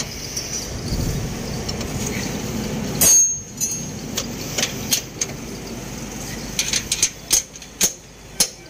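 Steel-on-steel clinks and knocks from a truck's leaf-spring pack being worked into place on the axle, over a low steady rumble in the first few seconds, with one loud knock about three seconds in. Near the end, regular hammer strikes on the metal come about two a second.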